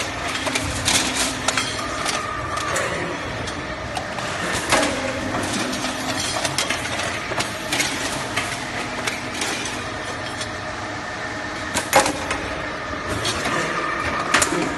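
Automatic can body welding line running: a steady machine noise full of quick metallic clicks and knocks as metal can bodies are fed along the conveyor. A low hum comes and goes, and a few louder knocks stand out, the loudest about twelve seconds in.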